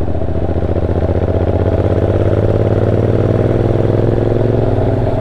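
Honda NC750X's parallel-twin engine running steadily while the motorcycle rides along at an even pace, with a rapid, even pulsing.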